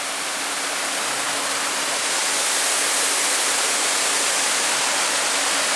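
Steady rush of water pouring over and below a dam.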